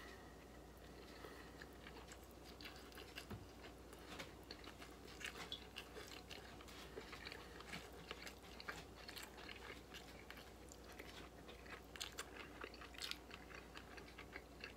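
Faint close-up chewing of a chicken sausage in a bun, heard as a steady run of small mouth clicks.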